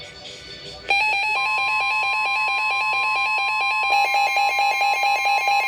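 Emergency Alert System attention tone starting abruptly about a second in: a loud, steady, harsh alarm tone with a fast flutter, with a second steady tone joining a moment later, sounding from a weather radio and an FM radio at once. It signals a severe thunderstorm warning about to be read.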